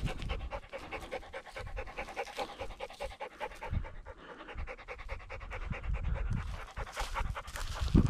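A dog panting fast and evenly, with a few low thuds.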